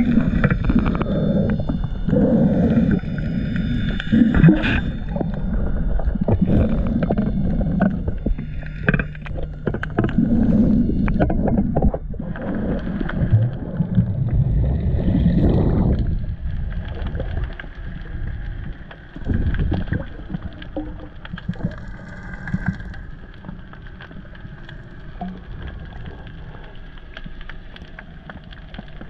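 Underwater sound picked up by an action camera in its waterproof housing: low, steady water noise with many scattered clicks and crackles while the diver swims along the rocky bottom, growing quieter about halfway through.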